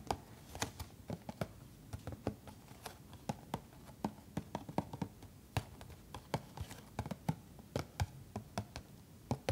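Long fingernails tapping and scratching on a cardboard box of sanitary pads: sharp, irregular clicks, a few a second.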